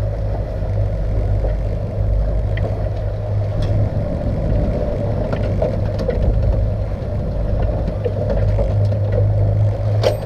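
Boat engine running steadily under way: a constant low drone and hum over a haze of wind and water noise, with a few faint clicks and knocks of gear being handled.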